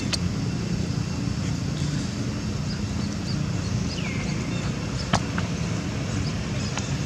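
Steady low rumble of a motor vehicle running nearby, with a short high chirp about four seconds in and a couple of faint ticks.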